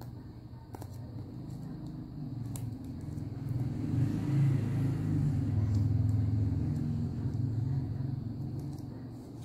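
A motor vehicle's engine rumble off in the background, growing louder to a peak about halfway through and then fading away as it passes. Faint clicks of a plastic card sleeve being handled come through over it.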